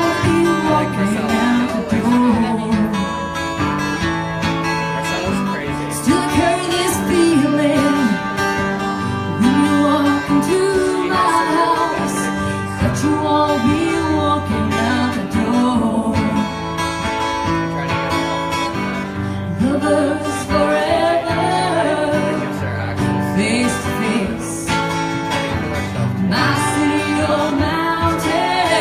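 A woman singing live while strumming an acoustic guitar.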